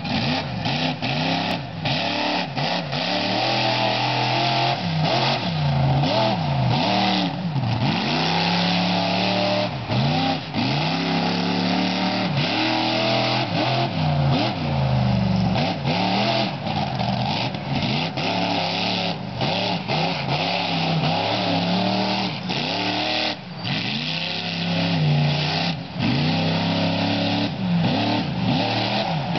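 Ghost Ryder monster truck's engine revving hard again and again, its pitch climbing and dropping as the throttle is worked through a freestyle run. It dips briefly a few times, with the short drops near the end.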